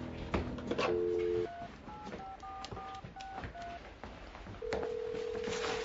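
Cordless phone dialing: a brief dial tone, then a quick run of keypad touch-tone beeps as a number is entered, then a long steady ringing tone on the line as the call goes through.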